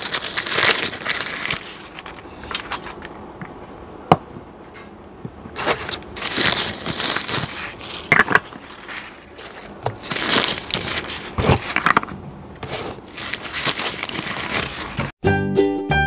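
Crumpled packing paper rustling and crinkling as it is pulled out of a cardboard box, in several bouts, with a few sharp clinks of small glass bowls. Light piano music starts suddenly near the end.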